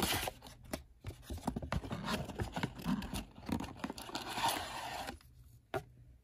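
A cardboard trading-card box is being torn open at its glued flap, with tearing, scraping and rustling of card that dies away about five seconds in. A single tap follows near the end.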